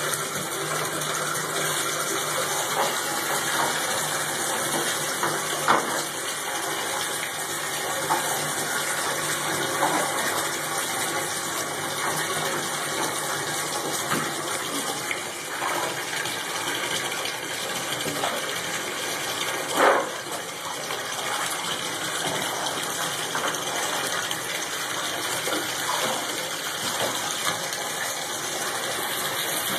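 Water running steadily into a bathtub while a puppy paws and splashes in the shallow water, with a few brief louder splashes or knocks, the loudest about twenty seconds in.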